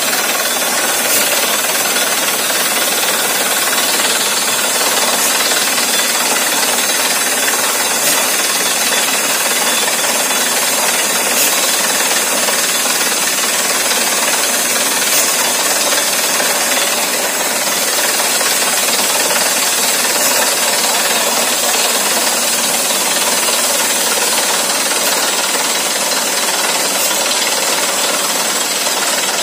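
Borewell drilling rig running while drilling: a loud, even machine noise with a strong hiss and no pauses.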